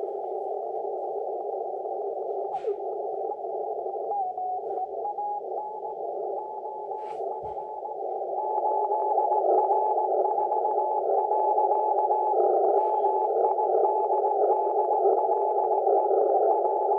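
ICOM IC-7300 HF transceiver in CW mode receiving 20-metre band noise through its narrow CW filter: a steady hiss squeezed into a narrow pitch band, with faint tones coming and going as the dial is tuned. It gets louder about eight seconds in as the gain is turned up.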